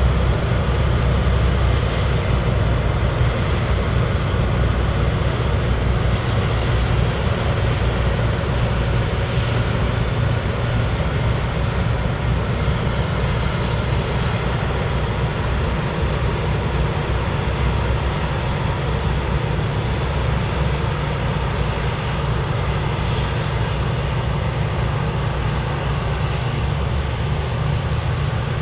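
Claas Lexion 780TT combine harvester running steadily while harvesting barley: a constant low engine drone mixed with the rushing noise of the threshing machinery.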